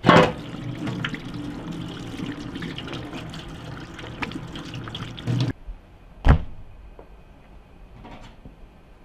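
Kitchen tap running onto a whole pike perch and a stainless steel sink as hands rub the fish clean, water splashing. The running water stops abruptly about five and a half seconds in, and a single sharp knock follows about a second later.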